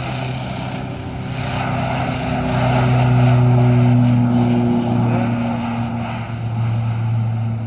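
Harbin Y-12E's twin Pratt & Whitney PT6A-135A turboprops at takeoff power on the takeoff roll: a steady low propeller drone over a rushing sound, swelling to its loudest about three to four seconds in as the aircraft passes, then easing off.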